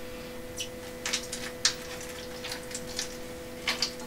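Steady hum of a Little Giant egg incubator's fan motor, with irregular light clicks and taps as water is added to the incubator's humidity channels.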